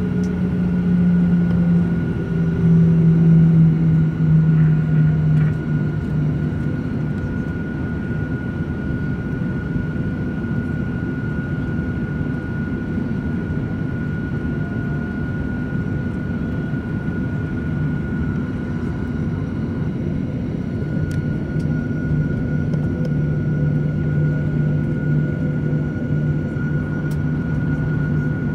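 Boeing 737-800's CFM56-7B jet engines at taxi idle, heard from inside the cabin: a steady hum with a thin, high whine over a deeper drone. The drone is louder and sinks a little in pitch over the first few seconds, then settles.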